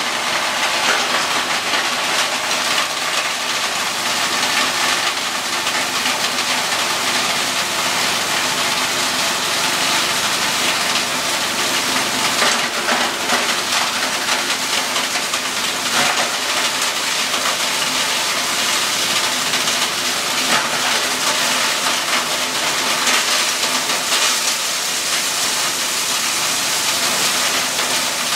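Plastic shredder running, its rotor chopping plastic bottles fed into the hopper: a dense, steady crackling rattle of plastic over a steady hum from the machine.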